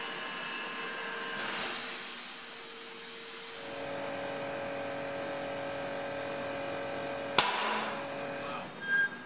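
Compressed air inflating a freshly fitted tyre on an alloy wheel through a clip-on air line. A hiss of air comes first, then a steady hum as the air feeds in. About seven seconds in there is a single sharp pop, typical of the tyre bead snapping onto the rim, followed by a short hiss.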